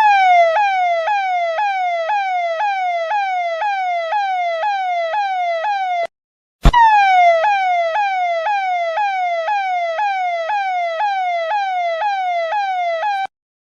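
Electronic police siren sounding a rapid repeating falling wail, about two sweeps a second. It cuts off for about half a second midway and again near the end, with a sharp click each time it restarts.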